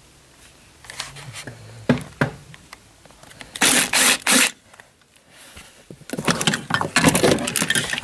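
Ratchet wrench with an 8 mm socket loosening a seat-belt anchor bolt: three loud rasping strokes a little under halfway through, then a quick run of ratchet clicks near the end.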